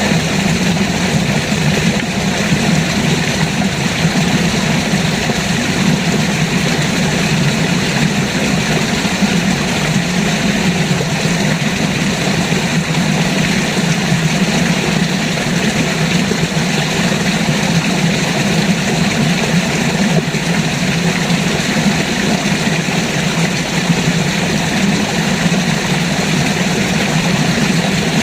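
River water rushing steadily, a continuous even noise with a strong low rumble.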